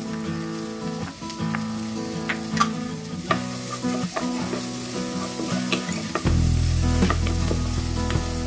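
Chopped onion sizzling in hot oil in a nonstick wok while a wooden spatula stirs it, with scattered light scrapes and taps of the spatula against the pan.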